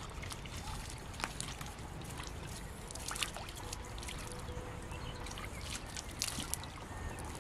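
Water trickling and dripping, with a few small clicks, over a steady low rumble.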